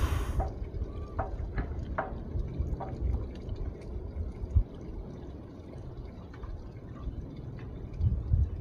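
Water lapping and dripping, with a few small plinks in the first three seconds, over a low rumble. It goes quieter in the middle and the rumble picks up again near the end.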